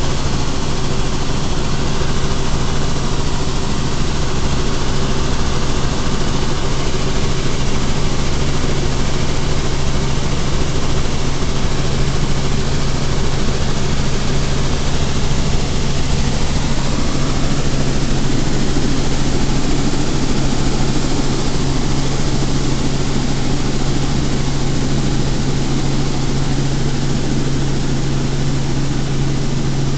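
Helicopter engine and rotor noise heard inside the cabin in flight: a loud, steady drone with a constant low hum under it.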